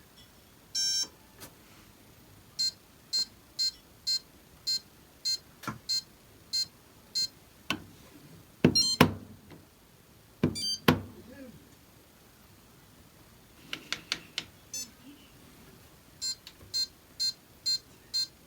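Maytag laundry machine control panel beeping: a longer beep, then a run of short, evenly spaced beeps about two a second. In the middle come a few loud knocks or clicks, the loudest sounds here, then another run of short beeps near the end.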